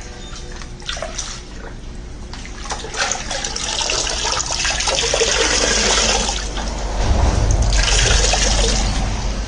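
Floodwater sloshing and pouring in two long surges, the second with a low rumble.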